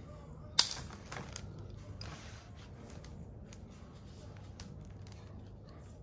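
Air line cutter snipping through quarter-inch air-suspension tubing with one sharp click about half a second in. Lighter clicks and a brief rustle of the coiled tubing being handled follow.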